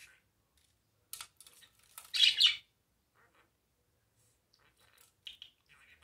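Budgerigar making a few short, high chirps, with a louder squawk about two seconds in.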